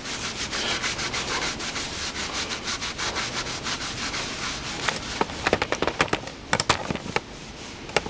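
Cloth rubbed briskly by hand over a waxed wooden root piece, buffing the wax to a shine, in quick scratchy strokes. About five seconds in, the steady rubbing breaks up into a run of sharp separate clicks and knocks.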